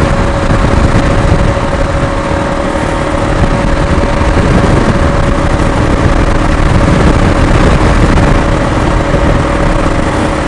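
Motorcycle riding at a steady highway speed: heavy wind rush over the camera microphone, with a constant engine hum under it.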